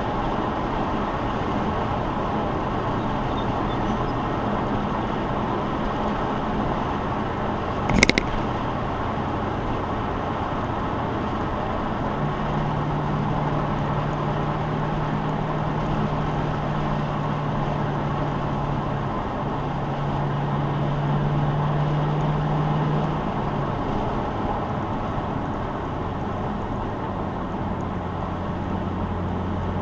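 V8 car driving at steady speed: tyre and road noise over a steady engine drone whose pitch steps up about twelve seconds in and settles lower near the end. One sharp knock about eight seconds in.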